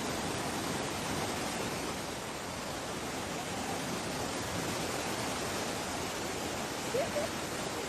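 Fast river water rushing steadily, an even noisy roar of the current.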